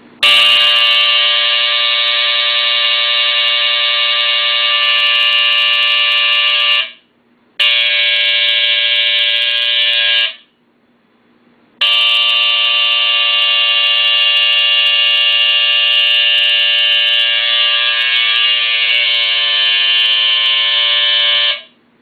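A vintage Honeywell ionization smoke detector's alarm going off, set off by smoke from a lit match. It gives a loud, steady buzzing tone that sounds for about seven seconds, drops out briefly, sounds for about three seconds, pauses for a second and a half, then sounds for about ten more seconds before cutting off near the end.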